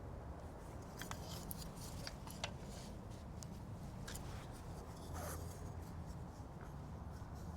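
Scattered small clicks and scratchy rubbing as the bonsai juniper and its branches are handled, coming in two clusters, about a second in and again around four to five seconds in.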